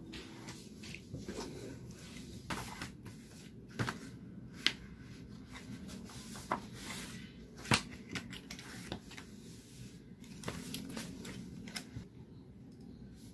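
Sheets of paper being handled, shuffled and laid down on a desk, with scattered light taps and clicks; two sharp taps stand out, about 5 and 8 seconds in.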